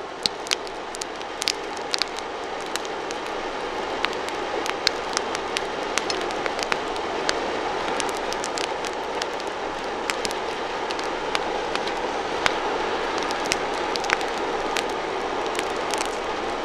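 Wood fire burning in a wood-fired forge: a steady rushing of flame with frequent sharp crackles and pops scattered irregularly throughout.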